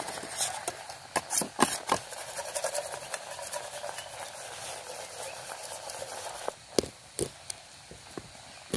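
Small river shrimp being swirled and rinsed in water in a metal camping pot, with a light sloshing and scattered clinks and knocks. About two-thirds through, this gives way to a few separate sharp knocks of a knife on a wooden cutting board as a corn cob is cut.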